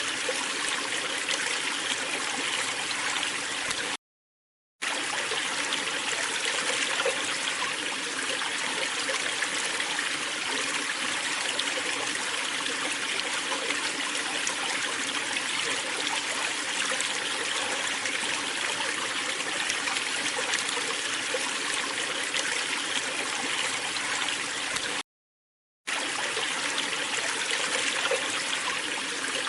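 Waterfall: water falling and splashing in a steady rush. It cuts out to silence twice, each time for under a second.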